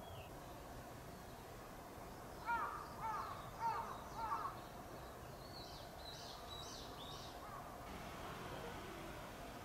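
A crow cawing four times in quick succession, about half a second apart, followed by fainter, high-pitched calls of a small bird.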